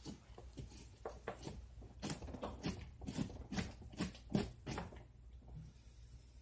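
A hand carving tool scraping and gouging into a pumpkin's rind and flesh in a quick run of short strokes, about two or three a second, which stop about five seconds in.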